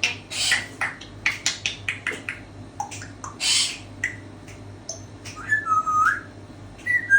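African grey parrot making a quick string of clicks and short hissy sounds, mixed with short whistled notes, and a longer whistle that dips and rises again about five and a half seconds in.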